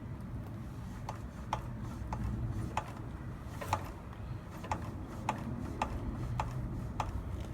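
Fox Float 32 Evolution suspension fork being pumped through repeated compressions, giving a sharp click or clunk about every half second to second. It is an unexplained clunk from inside the fork that the owner is seeking a cause for.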